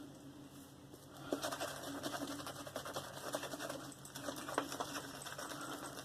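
Synthetic shaving brush working a wet lather of Mitchell's Wool Fat soap, a quick run of soft crackling swishes that starts about a second in and eases off near the end. The lather is close to done, starting to glisten.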